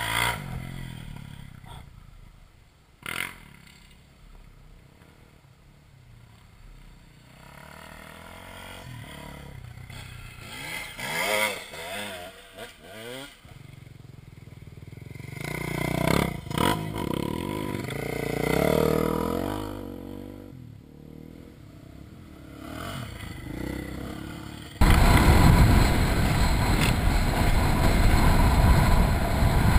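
Dirt bike engine heard from the rider's helmet camera, its revs rising and falling as the bike is ridden over rough bush track. About 25 seconds in, a loud steady rushing noise suddenly takes over.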